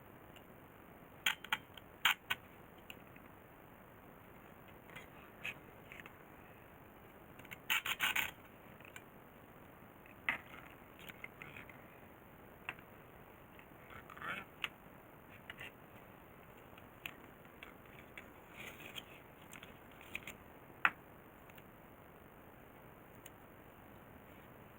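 Scattered clicks, clinks and short clatters of small tools and parts being handled, about a dozen at irregular intervals over a steady hiss, with a brief busier clatter about eight seconds in.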